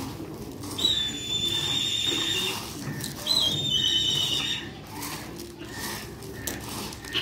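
Two long, wavering high-pitched whistles, the first about a second in and the second about three seconds in. Under them is a faint rustle of hands stirring mixed pigeon seed in a metal bowl.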